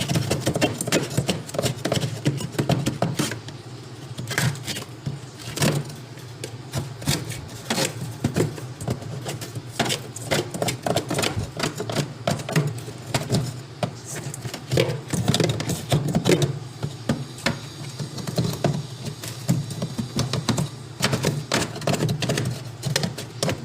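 Rapid, irregular clicks and knocks over a steady low hum.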